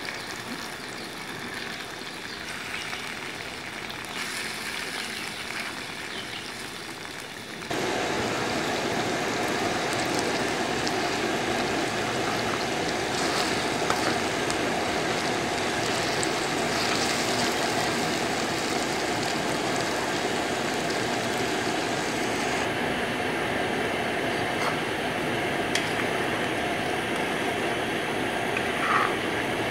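Besan-coated potato fingers deep-frying in hot ghee in an iron kadhai: a steady sizzle and bubble. It gets suddenly louder about eight seconds in, with a few light clicks of a metal slotted ladle against the pan.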